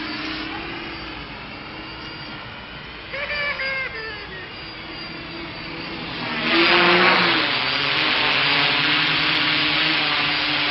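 Quadcopter's electric motors and propellers buzzing in flight, the pitch shifting up and down as it manoeuvres. About six and a half seconds in it turns much louder with a hissing rush of air.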